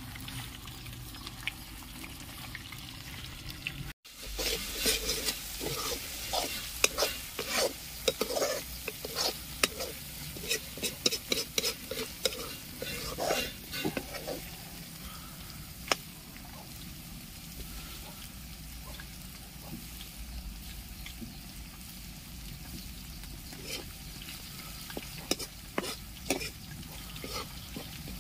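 Fish frying in oil in a kadai, a steady hiss. About four seconds in, this gives way to a metal spoon scraping and clicking against a steel wok as a spiced mixture is stirred and sizzles. The scraping is rapid at first and thins out to occasional clicks over the hiss in the second half.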